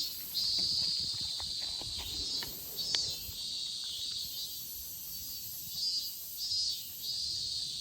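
Cicadas singing, a high buzzing chorus that swells and drops back in repeated surges.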